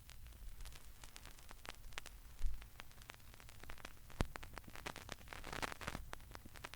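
Vinyl record surface noise: scattered crackles and pops over a low rumble, with a single thump about two and a half seconds in and a thicker patch of crackle near the end.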